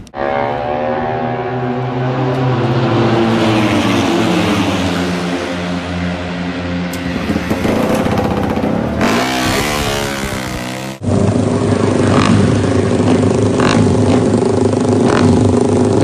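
Moto3 racing motorcycles' single-cylinder 250 cc four-stroke engines running in the pit lane. One is revved, its pitch rising and falling, and cuts off abruptly about eleven seconds in. Another then runs at a steady note with a few sharp pops.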